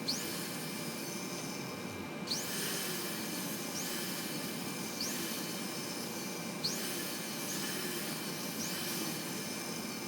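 Sanding of the old bent-over metal tabs on a found-object clasp to smooth them so they won't snag: a steady hiss with a short high squeak every one to two seconds.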